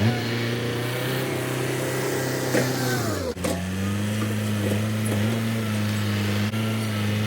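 An engine running steadily; about three seconds in its pitch sags briefly as it takes load, then settles back to a steady run.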